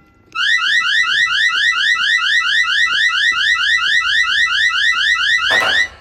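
Electronic alarm-like sound effect: a rapid warble of short rising beeps, about seven a second, starting about a third of a second in and cutting off abruptly near the end.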